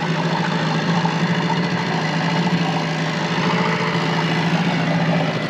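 Boat motor running steadily at low trolling speed: an even engine hum over a wash of broad noise.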